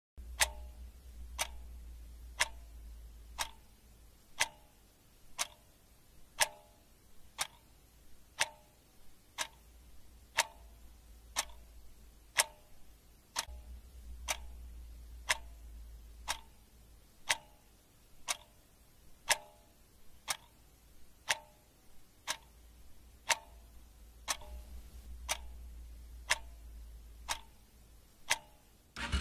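A steady ticking, about one sharp tick a second, with a faint low rumble coming and going underneath.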